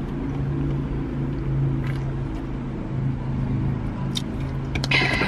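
Steady low hum of a car's engine running, heard inside the cabin, with a few faint clicks from eating.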